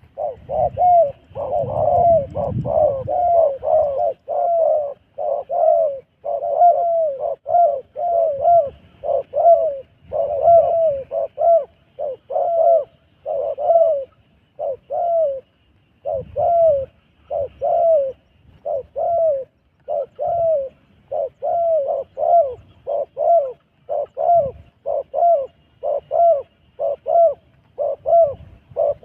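Spotted dove cooing over and over, a steady string of short, loud coos about two a second.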